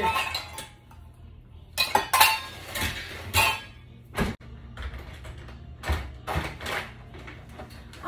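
Dishes and cutlery clattering and clinking in a dishwasher rack as it is unloaded, in a series of separate clatters with a dull knock a little past the middle.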